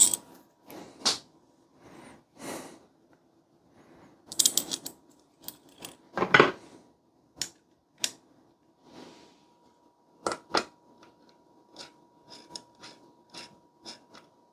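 Scattered small clicks, taps and rattles of PC-building hardware being handled: plastic risers, screws and a screwdriver around the CPU cooler's mounting bracket, at irregular intervals with a few louder clatters.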